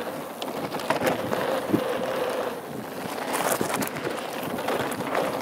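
Hardtail mountain bike running fast down a gravel trail: tyres rolling over loose gravel, with sharp clicks and knocks from the bike rattling over bumps, and wind on the microphone.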